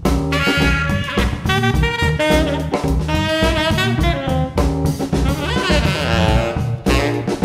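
Jazz organ trio playing: a tenor saxophone solo over Hammond XK-5 organ and a drum kit, with the organ holding a walking low line and the drums keeping time.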